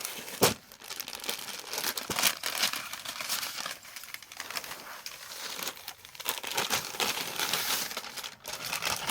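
Continuous crinkling and rustling as packaged suits and their crisp fabric are handled and unfolded, with a sharp click about half a second in.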